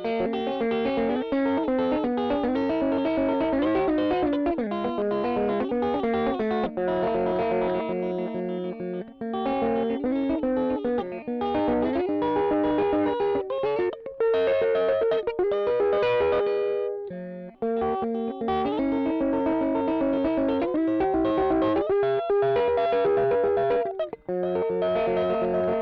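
Electric guitar played through a Caline 'British Sound' pedal set with all knobs at 12 o'clock, playing a strummed chord part. The chords keep changing, with brief breaks about 17 and 24 seconds in.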